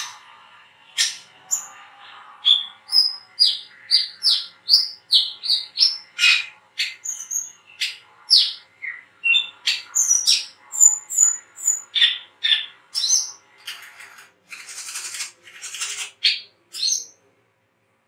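Brown-throated sunbird (kolibri kelapa, 'wiceh') chirping: a fast run of short, sharp, high chirps, about two a second, jumping between pitches, with a few harsher buzzy notes near the end.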